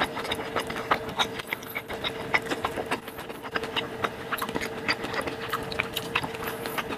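Close-miked eating sounds: wet chewing, lip smacks and the crackle of crispy tacos being bitten and pulled apart by hand, heard as a quick irregular run of clicks and smacks. A faint steady hum runs underneath.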